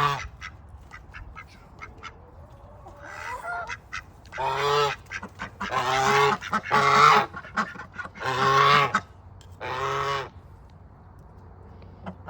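Farm poultry calling: five loud calls, each under a second, come one after another in the second half, after a few fainter calls.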